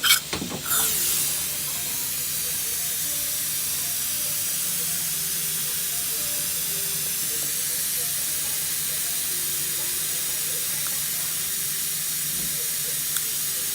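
Dental suction hissing steadily during implant surgery, after a brief loud noise right at the start. Soft music plays faintly underneath.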